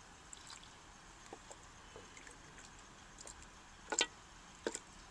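Long-handled ladle knocking and scraping against an earthenware pot and clay plate while curry is dished out. Light scattered clicks lead to the loudest knocks about four seconds in, followed by another pair just before the end.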